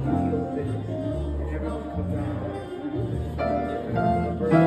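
Grand piano being played: full chords over deep bass notes, changing about once a second, with fresh chords struck near the end.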